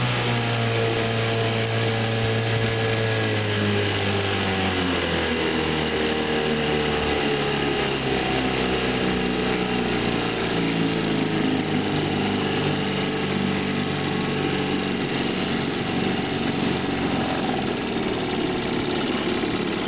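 1967 Johnson JW22C 3 hp two-stroke outboard motor running under way. It is throttled back over the first several seconds, so its pitch falls, and then runs steadily at slow speed.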